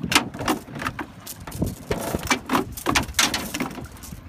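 Anchor rope and chain hauled in by hand over a small boat's side: irregular knocks, rubs and splashes of water against the hull.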